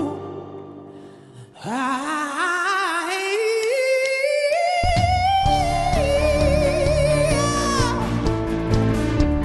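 A male singer holds a long, climbing vocal line with vibrato over a sparse backing. A full band with bass and drums comes in about halfway through.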